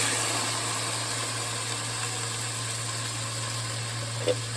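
Chicken sizzling as it hits a hot pan of cooked onions and garlic, loudest at first and easing off slowly, over a steady low hum.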